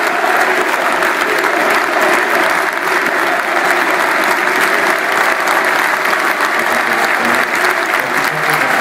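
Large football stadium crowd, a loud steady wash of crowd noise from the packed stands, heard from among the spectators.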